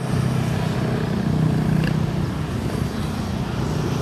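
Steady road traffic: the continuous low hum of passing vehicle engines, with no pauses.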